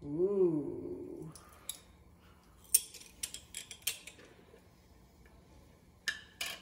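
Butter melting in a hot nonstick frying pan, crackling with scattered small spitting pops, most of them between about two and four seconds in, with two sharper pops near the end.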